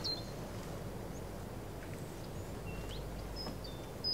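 Outdoor lakeside ambience: a steady low rush with a small bird's short, high calls a few times, mostly in the second half.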